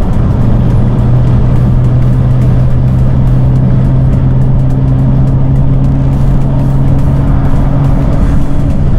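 BMW M2 F87's turbocharged N55 inline-six with aftermarket exhaust, running at a steady engine speed as a constant low drone. A second, higher tone joins in about four seconds in.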